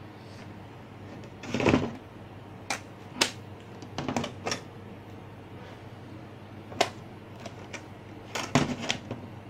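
Handling noise on a workbench as an analog multimeter and its test leads are set up: a scattered series of clicks and knocks, the loudest about a second and a half in and near the end, over a steady low hum.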